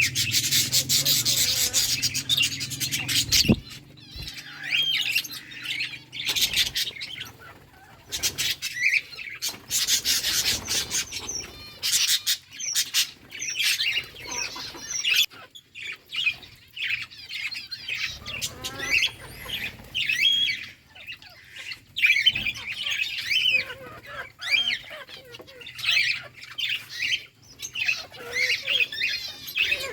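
Several budgerigars chirping and chattering, with a few noisy bursts of fluttering wings, the loudest near the start and about ten seconds in.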